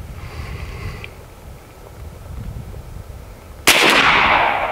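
Air Venturi Dragon Claw .50-caliber big-bore PCP air rifle firing a 245-grain slug: one sharp report about three and a half seconds in, with a tail that fades over more than a second.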